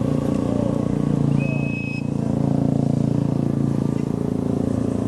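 Large bus diesel engine running steadily at close range, with a short, high, steady whistle-like tone about a second and a half in.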